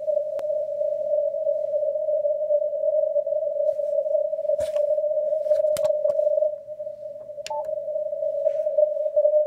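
Receiver audio from a ham radio transceiver on the 160-metre band in CW mode: band noise through a narrow 600 Hz filter, heard as a steady hissy tone around 600 Hz, broken by a few sharp clicks.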